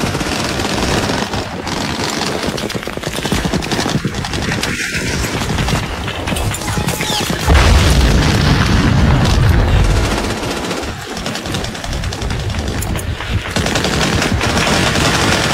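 Dense, continuous German MG-42 machine-gun fire mixed with rifle shots. A heavy boom comes about seven and a half seconds in.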